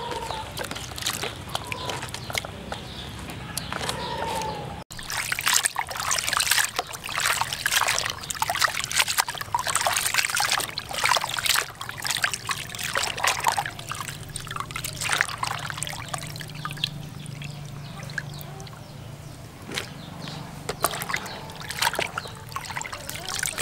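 Water sloshing and splashing in a plastic basin as hands stir and rinse a heap of cleaned frogs. The splashing is busiest from about five seconds in.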